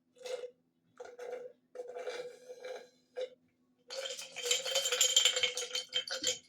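Rattling and scraping handling noises: a few short bursts, then a louder, longer rattle starting about four seconds in.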